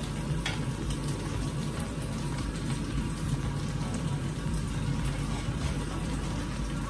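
Pomfret frying in oil in a pan: a steady sizzle with scattered small pops.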